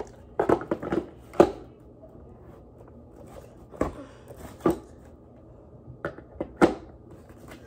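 Scattered clicks, knocks and rustles of cardboard and plastic toy packaging being pulled and worked loose by hand, a quick cluster in the first second and a half, then single knocks every second or so.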